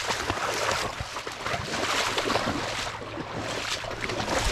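Shallow pond water splashing and sloshing in irregular bursts, with wind on the microphone.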